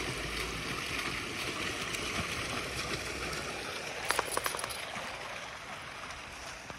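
Steady rush of running water, slowly fading, with a brief cluster of light clicks about four seconds in.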